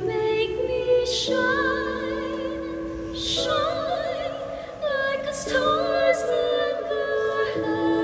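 A woman singing with wide vibrato over a sustained instrumental accompaniment, short breaths between phrases.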